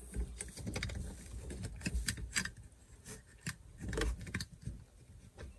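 Scattered small clicks and rattles of plastic parts as a car tweeter and its wiring plug are worked into the dashboard speaker opening by hand.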